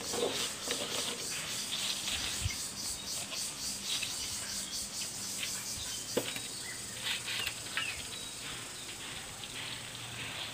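Chopped fresh taro leaves rustling as hands pile and spread them on a large leaf, many short crisp rustles, with a single sharp tap about six seconds in.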